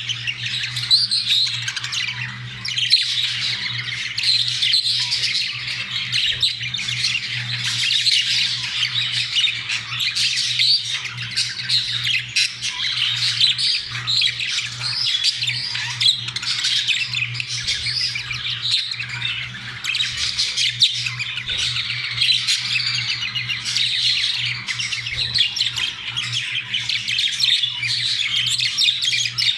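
Budgerigars chattering and warbling continuously, given by the uploader as their mating sounds, with a steady low hum underneath.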